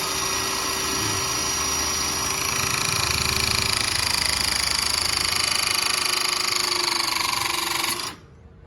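Battery-powered 12-ton hydraulic crimping tool (ECT-12042, Makita 18V battery) running its motor and pump steadily through a crimp. The tone shifts slightly about three seconds in, and the motor cuts off suddenly about eight seconds in.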